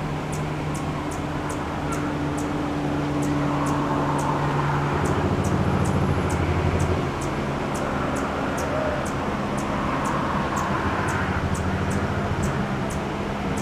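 Male Anna's hummingbird giving short, high chip notes, about two a second, over a steady low mechanical hum that swells around the middle.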